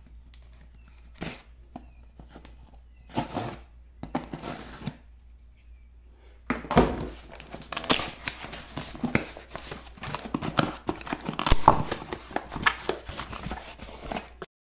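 A folding knife slitting the packing tape on a small cardboard box in about three short strokes. About six and a half seconds in, the flaps are pulled open and the box and bubble-wrapped parts inside are handled, giving a dense run of cardboard rustles and crackles.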